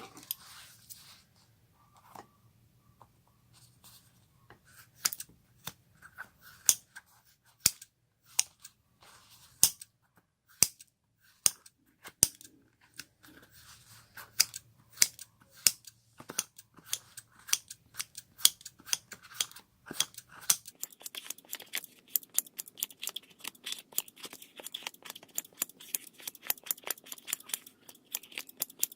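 Slime being squeezed and poked, giving off irregular sharp sticky clicks and pops. The clicks come much faster and closer together for the last several seconds.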